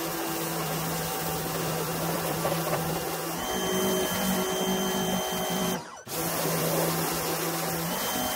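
Pressure washer running, its motor and pump tone steady under the hiss of the spray from the wand. The tone shifts a little about three and a half seconds in, and the sound breaks off briefly just before six seconds in.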